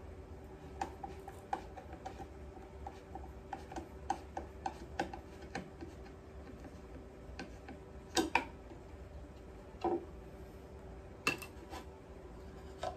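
Screwdriver backing screws out of a small plywood box: irregular light clicks and ticks of the tip in the screw heads, with a few louder wooden knocks in the second half as the box is handled and its lid comes loose.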